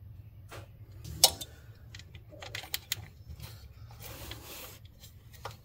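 Hand tools working on the intake manifold bolts: irregular metallic clicks and taps of a ratchet and socket, with one sharp click about a second in.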